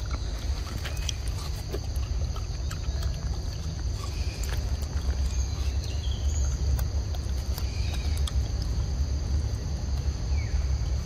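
Forest ambience: a steady high-pitched insect drone over a constant low rumble, with scattered short clicks and a few brief chirps.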